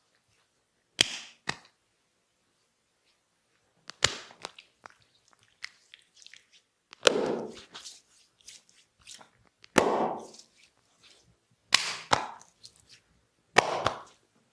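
Sharp hand slaps on oiled skin, the barber's 'skin cracking' massage stroke: about six loud smacks a couple of seconds apart, two of them followed quickly by a lighter second slap.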